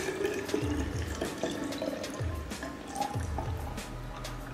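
Thin stream of liquid trickling and dripping from a glass jar into a small plastic bottle, over background music with a steady beat.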